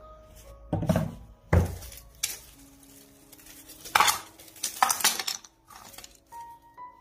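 Two heavy thuds as a stretched canvas is set down on a table, then small wooden canvas keys clatter out of a plastic bag onto a plastic-covered board about four seconds in, with the bag crinkling.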